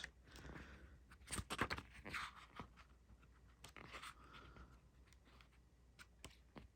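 Faint rustling and soft taps of art-book pages being turned and handled.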